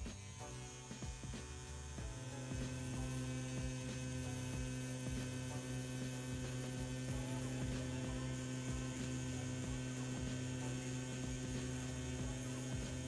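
CNC P6 rotary tattoo pen motor running with a steady hum, set to a 3 mm stroke at 9 volts. It cuts out just before the start and is running steadily again after about two seconds.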